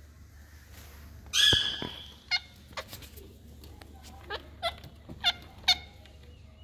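Indian ringneck parakeets calling: one loud, harsh call about a second and a half in, then a run of short, sharp, downward-sliding chirps.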